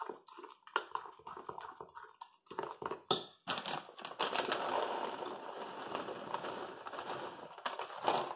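A metal spoon stirring a crumb mixture in a glass measuring cup, with short scrapes and clinks against the glass. About three and a half seconds in, a steady rustle starts as pecan halves are poured from a bag into the cup, and it runs for several seconds.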